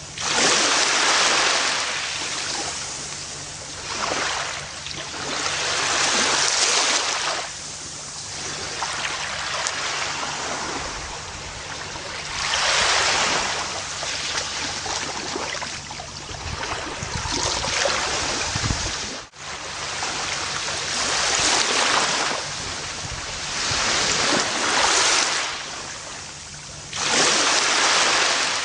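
Gentle ocean waves breaking and washing up a beach, the surf swelling and fading every few seconds. There is a brief sudden dropout about two-thirds of the way through.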